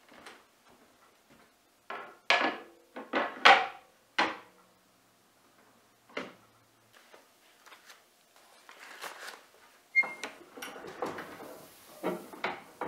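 Golding Pearl No. 3 treadle platen letterpress being worked: a handful of sharp metal clacks, then, from the second half on, a steadier clatter of the press cycling mixed with the rustle of paper flour bags being fed and taken out.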